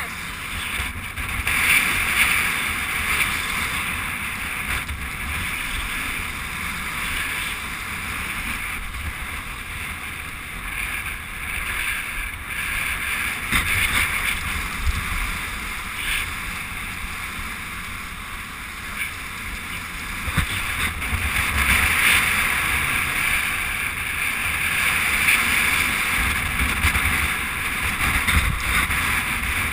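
Skis hissing and scraping over groomed snow on a downhill run, with wind rushing over the microphone; the rush grows louder about two-thirds of the way through.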